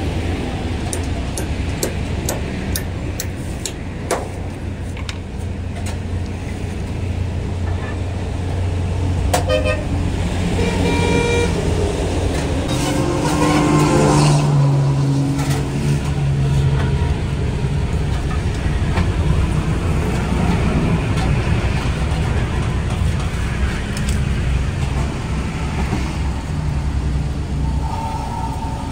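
Road traffic passing close by: a steady low engine rumble, with vehicle horns sounding a few times around the middle.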